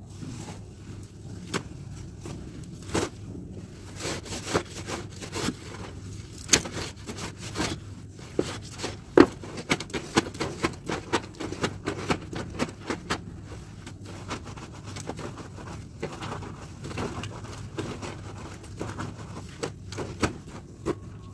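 Wet clothes being hand-washed on the floor: irregular scrubbing, rubbing and slapping sounds, busiest in the middle, over a steady low hum.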